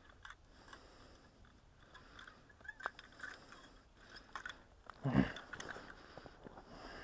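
Scattered crunching and clicking of snow and ice-fishing gear being handled, with one heavier bump about five seconds in.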